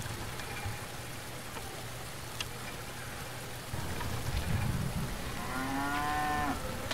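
A cow moos once near the end, a single drawn-out call lasting about a second, over a steady hiss of outdoor ambience.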